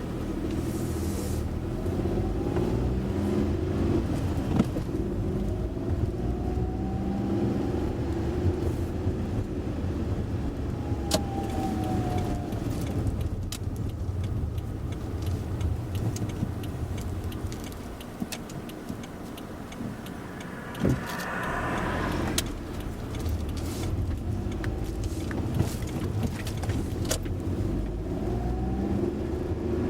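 A car driving, heard from inside the cabin: steady engine and road rumble with a few sharp clicks and rattles. It goes quieter for a few seconds past the middle, then picks up again.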